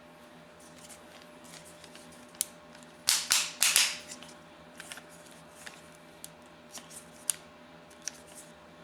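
Plastic and metal clicks and clacks from handling a work light's spring-loaded clamp mount, with a loud cluster of snaps about three seconds in.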